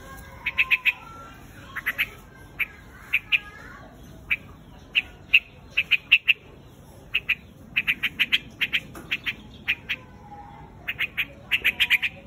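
Quạch mốc bird calling its flock: short, sharp squawking notes in quick runs of two to five, repeated again and again.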